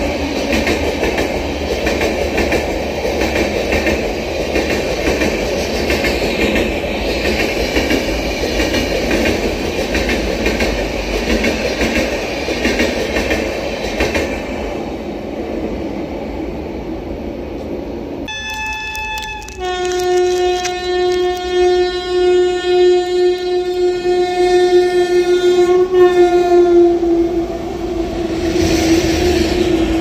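An Indian express train running through at speed, its rumble and wheel clatter fading away over the first half. Then a train horn sounds: a short blast about 18 seconds in, followed by a long, loud blast that dips slightly in pitch about three-quarters of the way through.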